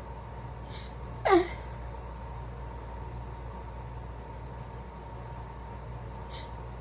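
A person's short, squeaky vocal sound about a second in, falling steeply in pitch and preceded by a faint breathy hiss. It sits over a steady background hum with a faint steady tone.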